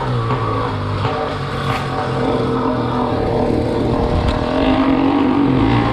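Small engine running steadily, its pitch rising and falling a little, over road and wind noise.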